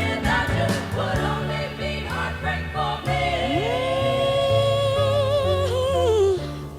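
Background music: a song with a lead voice over bass and a steady beat, the voice rising into one long held note with vibrato about halfway through.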